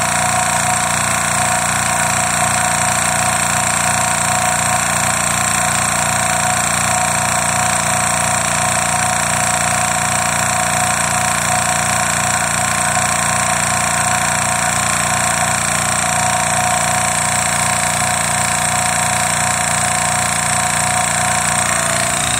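Hill EC-3000 electric high-pressure air compressor running steadily, with a fast even pulse under a constant mechanical drone. It is pumping a 480cc carbon fibre air-rifle tank up past 160 bar toward a 250 bar fill.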